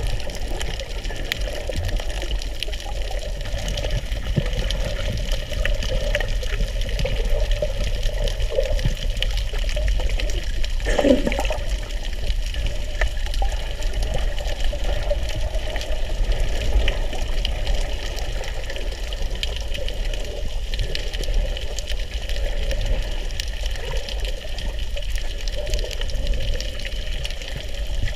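Underwater ambience at a camera held below the surface: a steady muffled rush of water with low rumble, and one brief louder sound about eleven seconds in.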